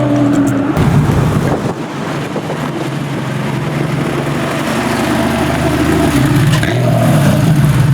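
Car engine running at low revs, fading about two seconds in, then growing steadily louder toward the end.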